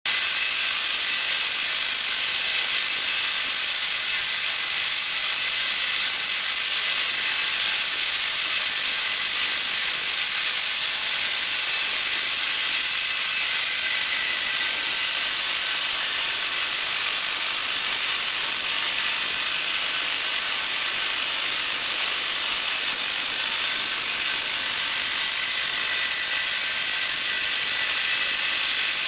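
Vibratory bowl feeder running with a load of short aluminium tubes: the tubes rattle and jingle against each other and the metal bowl in a steady, high metallic clatter.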